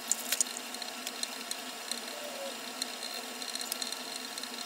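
Small clicks and light taps from parts and tools being handled on a workbench, a few sharper ticks in the first half second, over a steady hiss.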